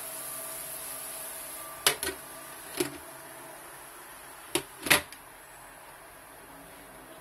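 Glass lid being set onto a metal wok, with a few sharp clinks and knocks: a pair about two seconds in, one near three seconds, and a louder pair near five seconds. A steady hiss runs underneath.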